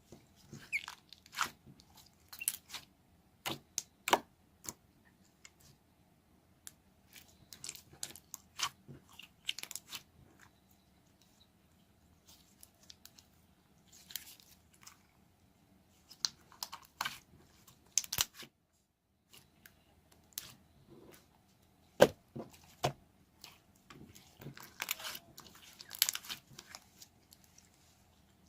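Slime being squished and stretched by hand, giving irregular clusters of sticky clicks, pops and crackles with short pauses between.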